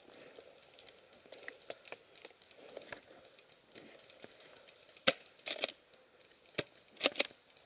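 Low rustling of clothing and gear, then a handful of sharp, short cracks in the second half, the snaps of airsoft guns being fired around the field.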